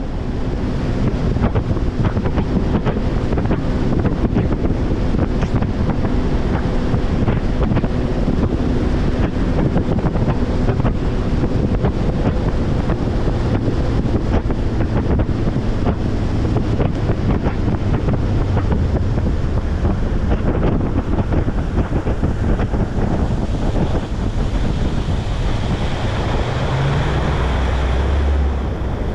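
Basscat bass boat running across the water at speed: a steady motor drone under heavy wind buffeting on the microphone and water rushing past the hull.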